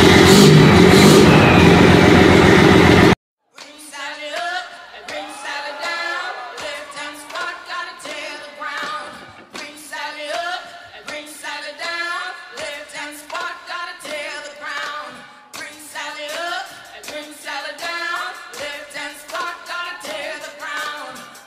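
Very loud rumbling noise from a semi truck's chrome exhaust stack for about three seconds, cut off abruptly; then a pop song with a singing voice plays.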